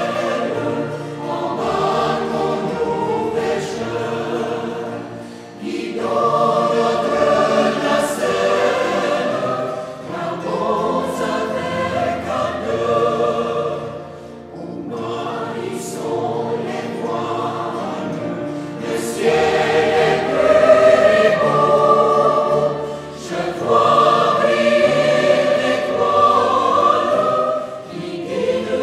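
Choral music: a choir singing sustained chords in phrases a few seconds long, with brief breaths between them.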